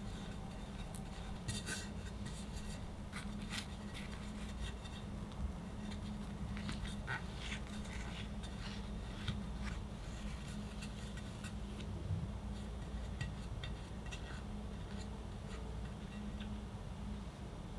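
Metal icing spatula and cake scraper spreading and smoothing chocolate whipped cream on a cake, with soft scattered scrapes and light taps over a steady low hum.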